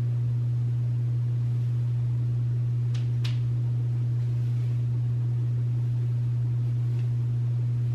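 A steady, unchanging low electrical hum, with two faint ticks about three seconds in.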